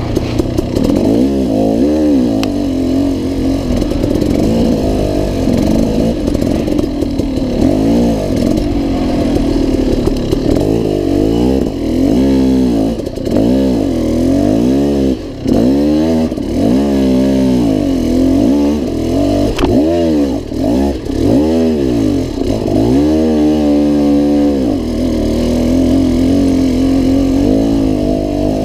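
Dirt bike engine revving up and down over and over, about once a second, as the throttle is worked on and off, then running at a steadier pitch near the end.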